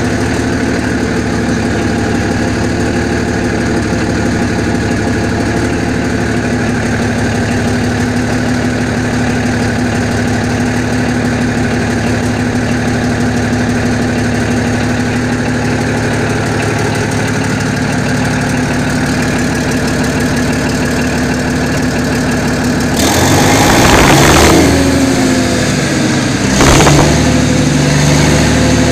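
Chongqing Cummins diesel engine of a 500 kVA generator set running steadily at idle just after starting, loud because it runs without an exhaust muffler. About 23 seconds in it grows louder for a couple of seconds, with another brief swell near the end.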